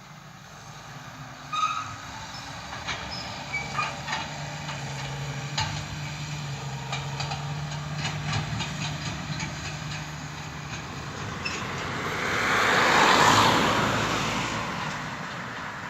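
Tractor driving past with clanking and rattling over a steady engine note, growing to its loudest near the end and then easing off.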